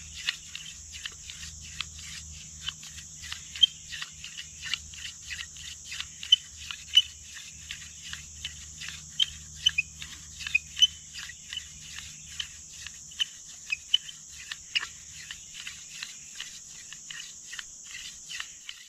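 Steady high insect drone, with many short sharp clicks and chirps scattered through it and a faint low rumble that fades out near the end.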